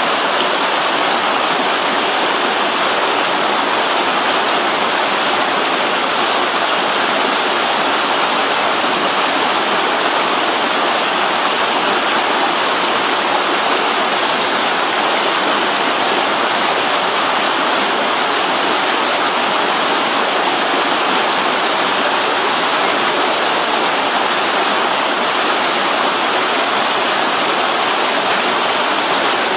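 Mountain stream rushing over rocks in a cascade, a loud, steady, unbroken rush of water.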